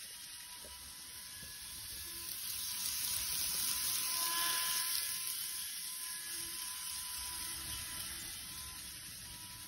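KATO N-gauge model of an eight-car 225 series 100 subseries electric train running past on its track, with a thin whine and a hiss from its motor and wheels. It grows louder to a peak about four to five seconds in, then fades.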